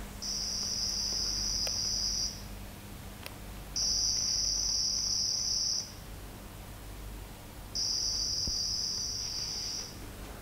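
Acoustic OFDM data transmission played from a loudspeaker: three bursts of high-pitched hiss, each about two seconds long, with short pauses between them as successive data blocks are sent. The loudspeaker is being moved during the transmission.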